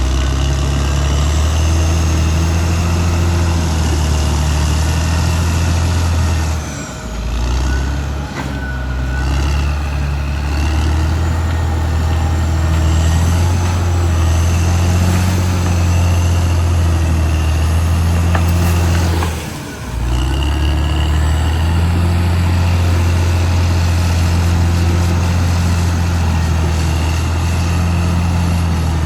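Caterpillar D6R XL bulldozer's diesel engine running steadily while working, with a high whine that comes and goes above it. The engine sound dips briefly about seven, eight and twenty seconds in.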